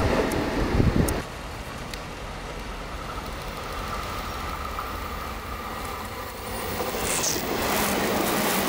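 Loud train running noise cuts off abruptly about a second in. Then a JR 381 series electric limited express approaches, its wheel-on-rail running noise growing louder from about six seconds in as it passes close by.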